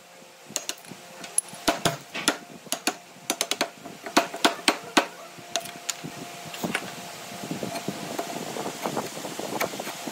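Mallet striking a wood chisel that chops out a joint in a softwood beam: a string of sharp, irregular knocks, then quicker, lighter taps and clicks in the second half as the chisel pares the cut. A faint steady hum runs underneath.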